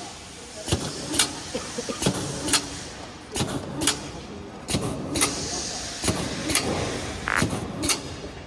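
Cereal bar forming and cutting machine running: sharp mechanical clacks in pairs about half a second apart, each pair coming back a little more often than once a second, over a steady machine hum.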